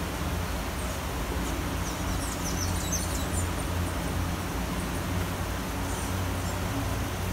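Steady city rain falling, with a low rumble of traffic underneath. A bird chirps a few times about two to three seconds in, and once more faintly near the end.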